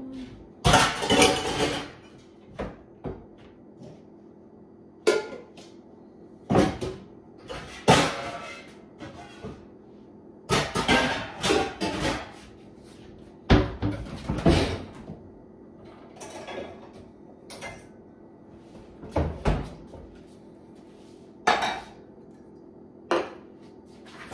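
Irregular metal clanks and scrapes of a can opener being worked on a can of corn, a dozen or so separate bursts with pauses between, as the can proves hard to open.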